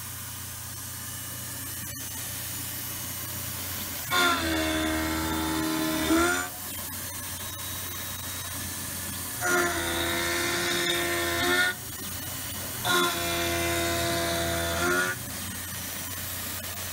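Tormach PCNC 770 CNC mill running a four-flute carbide end mill at 5,000 RPM through steel at 120 inches a minute, with a steady spindle and cutting hum. Three times the cut breaks into a loud, high-pitched squeal lasting about two seconds each, starting roughly four, nine and a half, and thirteen seconds in.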